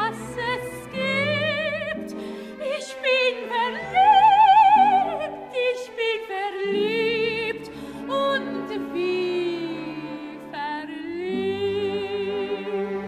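Operetta singing with strong vibrato over an orchestral accompaniment. The voice climbs to a loud, high held note about four seconds in, then carries on through a lyrical phrase.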